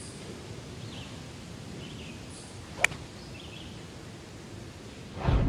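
A golf club striking a ball on a full swing: one sharp click about three seconds in, over faint outdoor background. A short, loud, low rumble swells near the end.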